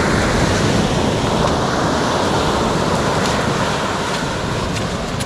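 Surf breaking and washing up a sand beach: a steady wash of noise that swells near the start and slowly eases off.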